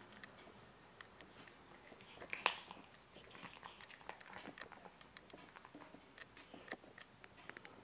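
Domestic cat with stomatitis eating, with faint irregular chewing and mouth clicks as it picks up bits of food. The loudest click comes about two and a half seconds in.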